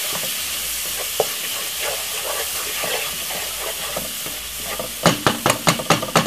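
Seasonings and browning sizzling in a hot pot, a steady hiss. About five seconds in, a utensil starts stirring, with quick knocks and scrapes against the pot.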